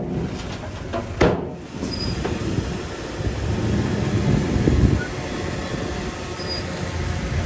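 Heavy earthmoving machinery working with a steady low rumble that swells for a couple of seconds around the middle, and a sharp clank about a second in.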